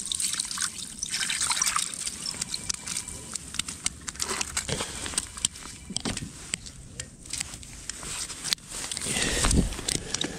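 Water sloshing and trickling at an ice-fishing hole, with many small clicks and crunches of slush and ice as things are handled at the hole.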